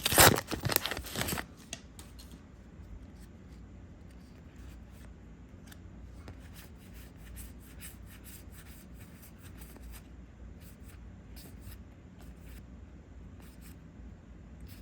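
Booster pack wrapper crinkling loudly for the first second and a half, then the faint scattered clicks and rubbing of trading cards being handled and flipped.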